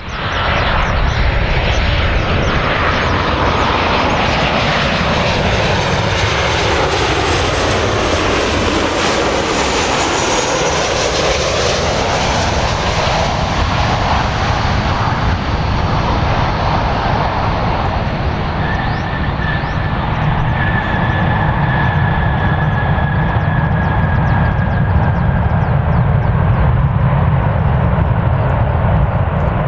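Boeing 737-800 jet engines: a loud, steady rushing jet noise with a swirling, phasing quality as the aircraft passes. Partway through, a steady high whine comes in for several seconds, and a deep rumble grows stronger toward the end.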